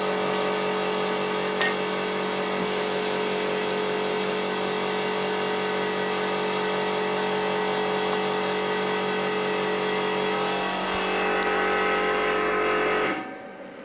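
A grinder running steadily while grinding back MIG welds on car body panel steel, then cutting off suddenly near the end.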